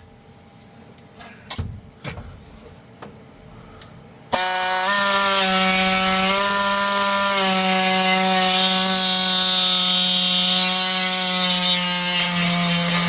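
Faint handling and clicks, then about four seconds in an electric power tool starts abruptly, runs loud at a steady pitch for about nine seconds, and stops suddenly: a tool cutting away the part of the car that blocks the gauge cluster.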